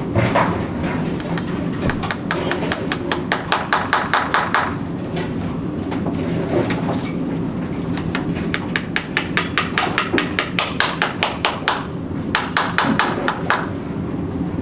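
Farrier's hammer striking in three quick runs of light, rapid blows, about five or six a second, over a steady low hum.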